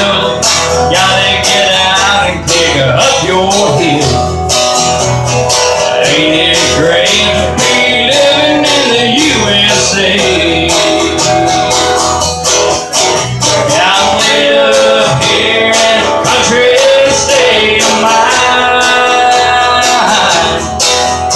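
Live country band playing: strummed acoustic guitars with a melody line carried over them, loud and steady throughout.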